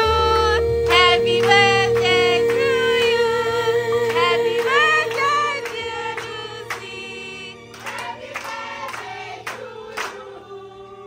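Background song with a singer holding and gliding between long sung notes over sustained chords. The music gradually fades out over the second half.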